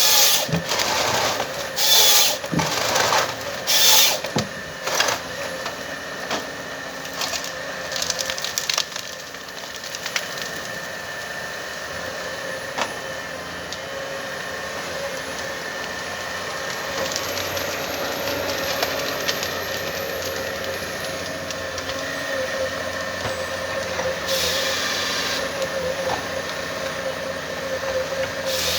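Komatsu 931XC wheeled forestry harvester at work: loud cracks and splintering of wood in the C144 harvester head for roughly the first ten seconds, with a few more cracks later. Under them the machine's engine and hydraulics run steadily with a whine.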